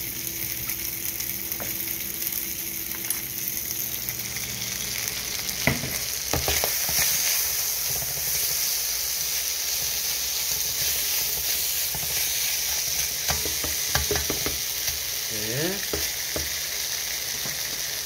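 Shredded pulled pork frying in a nonstick pan, sizzling steadily, while a wooden spatula stirs it with scattered scrapes and knocks against the pan. The sizzle gets louder about six seconds in.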